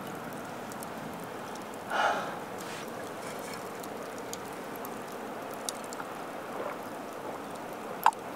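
Steady outdoor background hiss. About two seconds in there is a short breathy whoosh, and a few faint light clicks follow.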